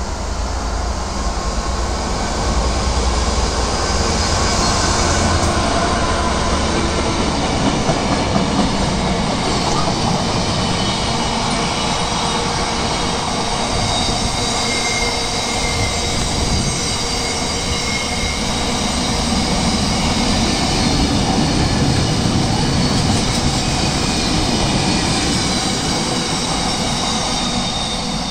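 A train running past on the track: a long, steady rush of wheel and rail noise with thin high wheel squeals over a low rumble, easing off near the end.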